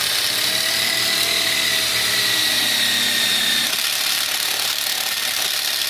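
Cordless power driver running steadily as it drives a mounting bolt into an ATV's nerf bar bracket, its whine sagging slightly in pitch.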